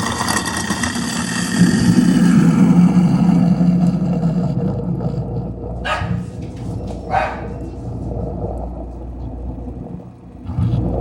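Kitchen sink garbage disposal running with a cleaning pack and a trickle of water in it, a loud churning grind with a steady hum. There are two brief harsh bursts about six and seven seconds in.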